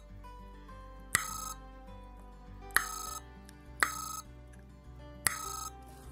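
Jaycar Jiminy the Cricket sound-activated kit's small speaker giving short electronic chirps, four times at uneven intervals, each beginning with a sharp click and ringing for under half a second. The chirps are the kit's response to sound reaching its electret microphone.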